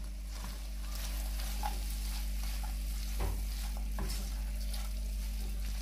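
Shredded chicken and vegetable filling sizzling in a nonstick wok as a spatula stirs it, with a few scrapes and knocks of the spatula against the pan.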